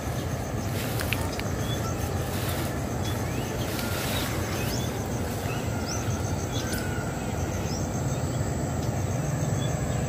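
Outdoor field ambience: a steady low rumble with faint, scattered bird chirps and short whistles over it.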